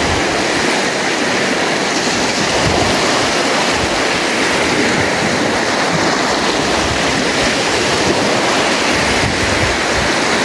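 Muddy stream water rushing steadily, an even unbroken sound of flowing water.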